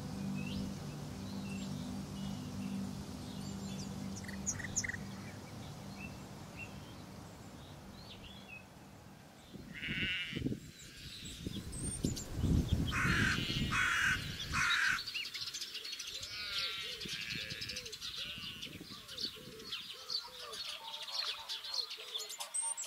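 Countryside ambience: scattered bird chirps over a low steady drone that fades out about nine seconds in. From about ten seconds on come louder bird and animal calls, including bursts of rapid chatter and a series of bending, wavering calls.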